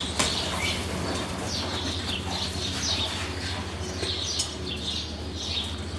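Small birds chirping, short high chirps repeating two or three times a second, over a steady low hum.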